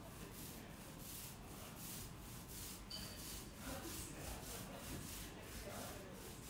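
Paint roller loaded with white paint rolling over a wall, a rhythmic rubbing at about three to four pulses a second. A short, faint high squeak comes about three seconds in.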